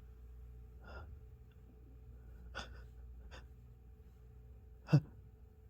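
A person's soft, catching breaths, then one short, sharp stifled sneeze near the end, brought on by an allergy to a cat.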